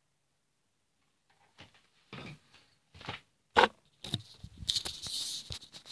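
Rustling, scraping and several sharp clicks, starting about a second and a half in, with the loudest click a little past the middle and a dense scratchy stretch near the end.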